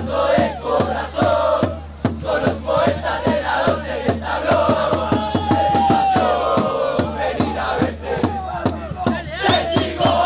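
A football barra brava chanting loudly in unison, backed by fast, steady drum beats, about three to four a second.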